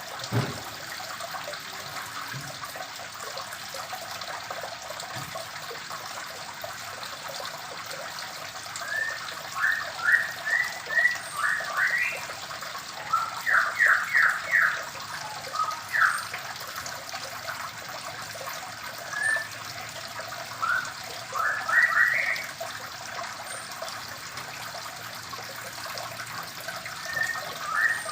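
White-rumped shamas chirping: short quick rising notes, often in bunches of three or four, from about nine seconds in until about twenty-two seconds, and again near the end. Under them runs a steady trickle of water, with a single thump at the very start.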